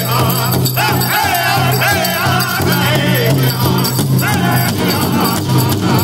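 Powwow drum group singing an intertribal song in high voices while beating a steady rhythm together on a large shared powwow drum.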